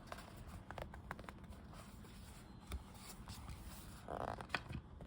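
Paperback journal's spine and pages being pressed open flat to crack the spine: faint crackles, small clicks and paper rustling, with a short louder crackle about four seconds in.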